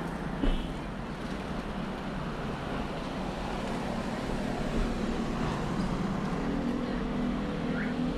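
City street traffic noise, a steady hum of passing and running cars. A single thump comes about half a second in, and a vehicle engine's hum grows near the end.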